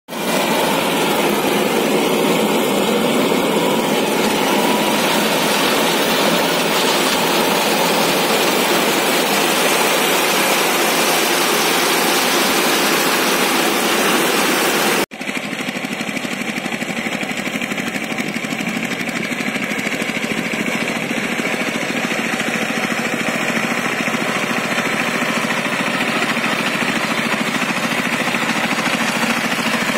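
Steady, loud farm engine noise for the first half, then an abrupt cut to a walking power tiller's single-cylinder diesel engine running steadily as the tiller churns through the mud of a flooded paddy field.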